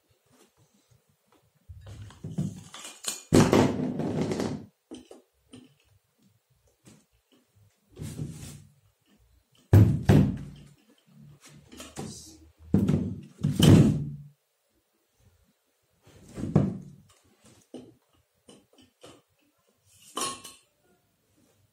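Parts of an 18-inch Asahi convertible industrial stand fan being handled and fitted together: the plastic base and metal pole knock, clatter and scrape in irregular bursts with short quiet gaps between.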